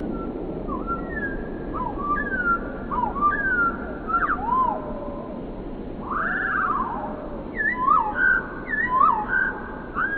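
Bird calls played back slowed down, so they sound as lower, drawn-out gliding whistles. Many overlapping calls repeat throughout, each rising or falling in pitch, over a steady background hiss.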